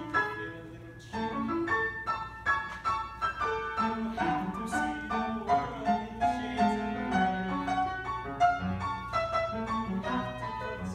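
Piano playing an instrumental dance passage, a busy run of notes over a moving bass line, accompanying the number.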